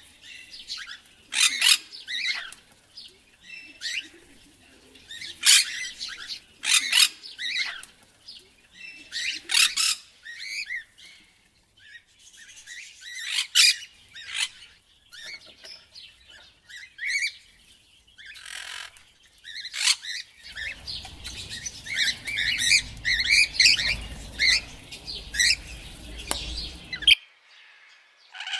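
Parrot squawking and chattering: loud shrill calls repeated every second or so, then quieter calls. About two-thirds through, a low rumble comes in under quick chattering, and both cut off suddenly near the end.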